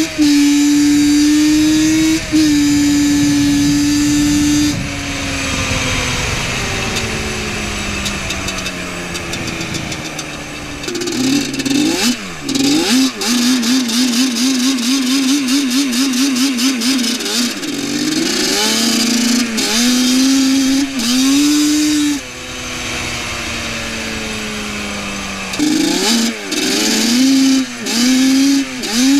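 Two-stroke sport quad engine held at high revs, then its pitch slides down slowly as the throttle is eased off, followed by a string of sharp throttle blips revving up and down. The revs fall away again for a few seconds before more blips near the end.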